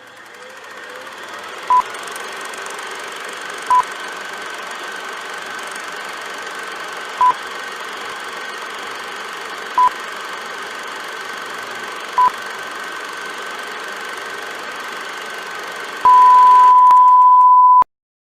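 Heart-monitor sound effect over a steady hum: five short beeps a few seconds apart, then one long held tone of about two seconds near the end, the flatline.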